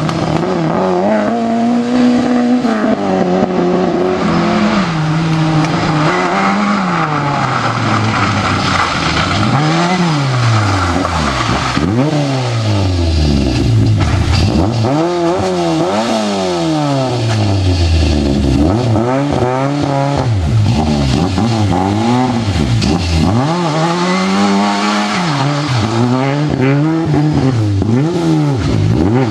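Rally car engine revving hard through a stage, its pitch climbing and dropping back many times as it shifts gears and brakes for corners.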